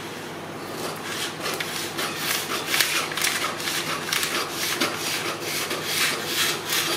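Large tailor's shears cutting through a sheet of pattern paper, a steady run of quick snips with the paper rustling, starting about a second in.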